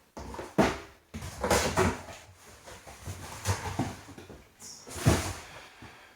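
Cardboard set boxes being handled, slid and set down: a series of knocks and scrapes, the loudest about half a second and five seconds in.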